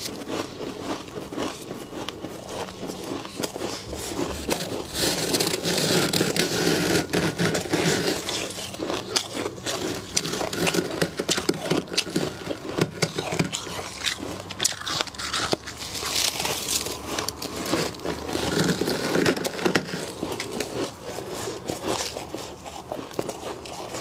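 Thick, fluffy freezer frost crunching, crackling and scraping as gloved hands scoop it up and squeeze it, a dense run of small crunches throughout.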